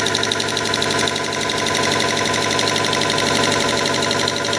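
A 5 HP air compressor driven by a three-phase electric motor running steadily, with a fast, even pulsing.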